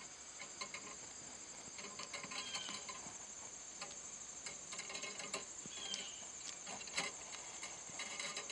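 Red squirrel gnawing and scraping at a golf ball's cover, heard as faint irregular clicks and scratches, under a steady high-pitched insect trill. A short, high falling chirp comes twice.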